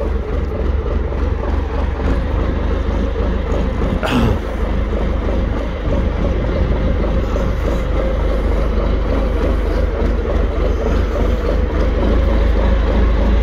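Forklift engine running with a steady, loud low rumble, while the machine carries a load of rubble-filled sacks on its forks. A single sharp knock sounds about four seconds in.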